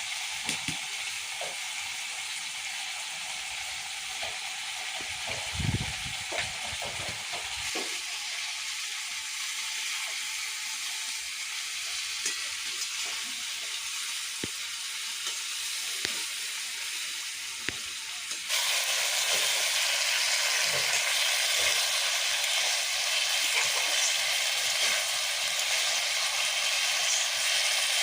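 Food frying and sizzling in hot oil in a pan, stirred with a spatula that clicks and scrapes against the pan now and then. About two-thirds of the way through, the sizzle suddenly gets louder.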